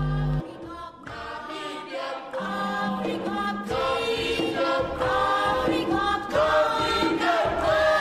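Background music: a choir singing slow, sustained chords in harmony. A low held chord cuts off just after the start, then the voices come in softly about a second in and swell.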